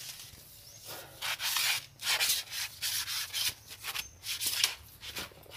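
Dry palm fronds rustling and scraping in several rough bursts, as a fishing rod is worked through and against them.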